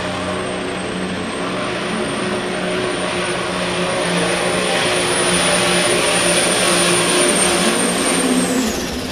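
Turbocharged diesel engine of a John Deere pro stock pulling tractor running flat out under load as it drags the weight sled, with a steady high turbo whistle over it. It gets louder through the run, and near the end the whistle drops away as the engine backs off.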